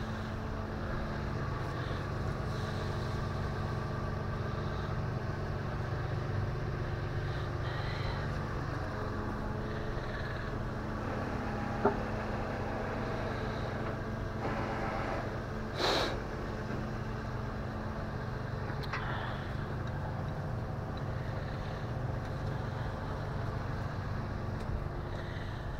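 Tow truck engine idling steadily, with a few sharp metallic clanks and knocks around the middle.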